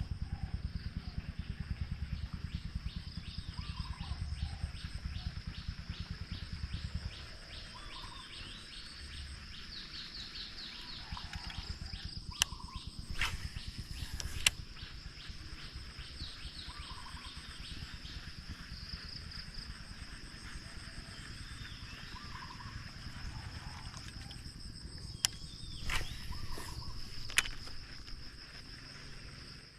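Insects buzzing steadily in a high, pulsing chorus. A low, rapid rattle runs through the first seven seconds, and a few sharp clicks come in the middle and near the end.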